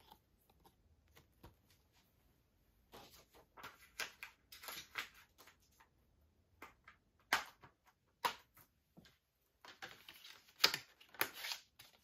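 A plastic Blu-ray case being handled and closed: irregular rustling and clicks, with several sharp snaps in the second half.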